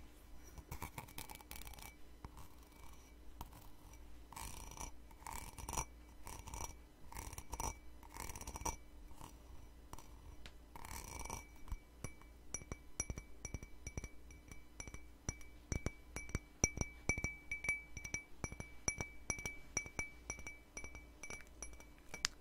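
Fingernails scratching and tapping a ceramic cup, the cup ringing with a clear high tone. About halfway through the strokes give way to fast, continuous tapping.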